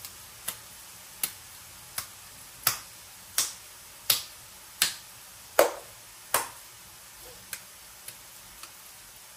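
A ball of minced pork being slapped from hand to hand to beat and compact it for a patty. There are about a dozen wet slaps at an even pace of roughly one every 0.7 s, loudest in the middle and softer near the end.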